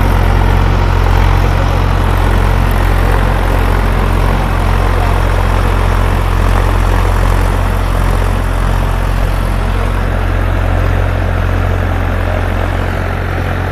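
Massey Ferguson 7250's 46 hp three-cylinder diesel engine running steadily under load, driving an 8-foot rotavator through dry soil. The low drone eases slightly near the end.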